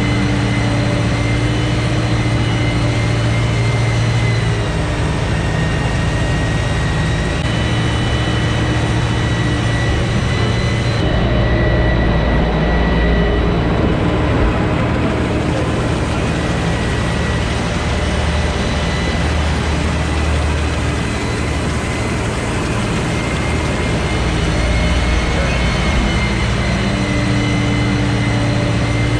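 Sherp 10x10 all-terrain vehicle's diesel engine running steadily under load, its engine note shifting up and down several times as it drives.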